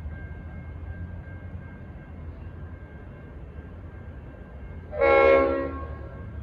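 One short blast, about a second long, on the Leslie RS5T five-chime air horn of a V/Line N class diesel locomotive, sounding about five seconds in. A low steady rumble runs underneath.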